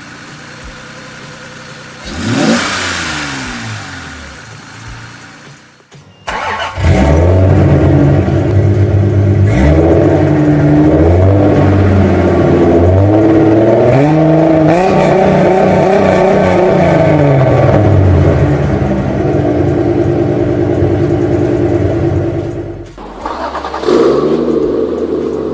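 A car passes by about two seconds in, its engine note rising and then falling. After an abrupt cut, a car engine revs loudly, its pitch climbing and dropping several times as it accelerates through the gears, until another cut near the end brings a different engine sound.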